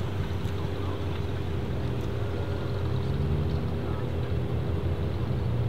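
ABT-tuned Audi RS3 sedan's turbocharged five-cylinder engine rumbling at low revs as the car rolls slowly by, the pitch rising slightly about three seconds in.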